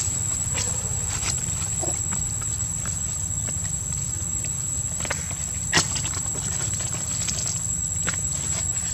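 Outdoor ambience: a steady high-pitched whine over a low rumble like wind on the microphone, with scattered soft clicks and one sharper click about six seconds in.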